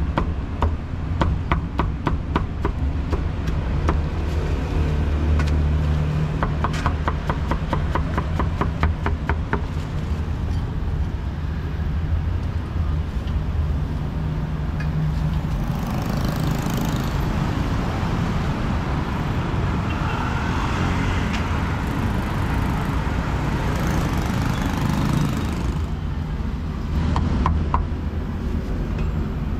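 Steady rumble of street traffic, with a run of quick cleaver chops on a chopping block over roughly the first ten seconds. A hiss rises about halfway through and stops a few seconds before the end.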